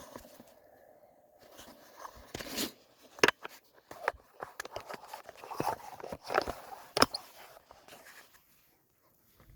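Work noise while a wooden fence board is fitted: irregular scraping and crunching, with two sharp knocks about three and seven seconds in.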